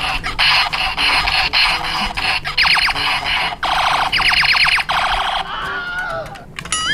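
Electronic sound effects from a knockoff Kamen Rider Drive DX Drive Driver toy belt: an alarm-like standby loop of rapid falling chirps repeated in short blocks. About five seconds in it gives way to a softer falling-and-rising electronic sweep, and a warbling tone starts near the end.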